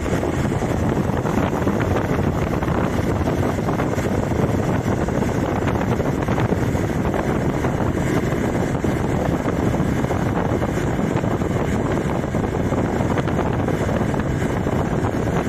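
Steady wind rush over the microphone of a motorcycle cruising at speed on a highway, with the Hero Xpulse 200 4V's engine and road noise underneath.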